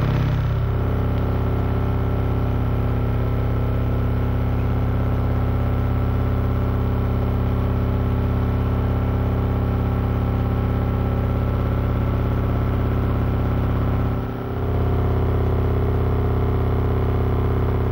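Steady electrical hum on the camcorder's recording, a low drone with a stack of overtones, caused by interference from the high voltage of the railway's overhead line. It dips briefly about fourteen seconds in.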